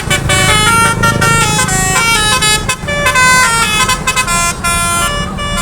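A bus's Basuri telolet horn, a multi-note musical air horn, playing a quick tune of stepped notes, with a low rumble underneath.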